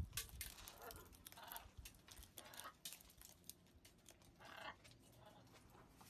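Faint, scattered crackles and rustles of blue-and-gold macaws feeding, beaks cracking seeds and rummaging in metal seed bowls.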